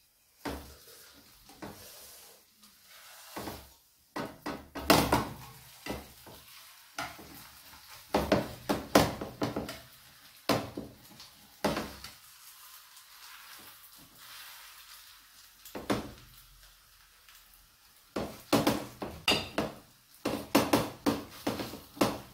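Spatula scraping and tapping against a frying pan in irregular bursts as zucchini pancake batter is spread and pressed, with the batter sizzling faintly in the oil between strokes.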